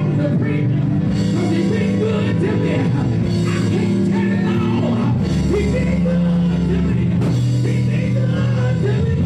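Live church praise music: sustained low chords with drums, and a voice singing and shouting over it into a microphone.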